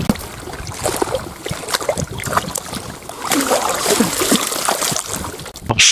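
Water splashing and sloshing with scattered knocks and clicks, from a hooked bream being played in and landed at the water's edge.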